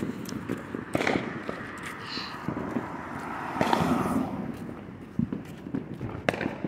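Fireworks and firecrackers going off at intervals: a handful of separate sharp cracks and pops spread over several seconds, with a longer noisy burst a little before the four-second mark.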